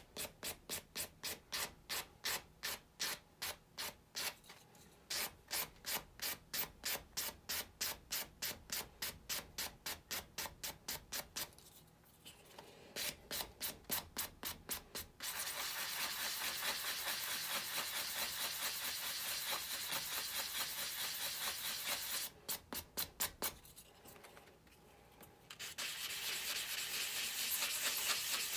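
A sanding sponge rubbed by hand over a 3D-printed plastic part. It starts as quick back-and-forth strokes, about three or four a second, with short pauses, and changes about halfway through to stretches of faster, continuous scrubbing.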